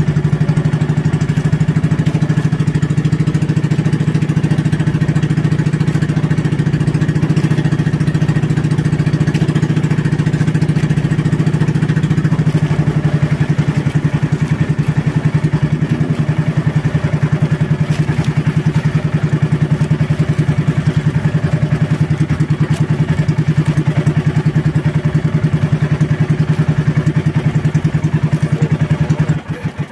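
Small outrigger fishing boat's engine running steadily at cruising speed, then throttled down to a slower, quieter idle just before the end.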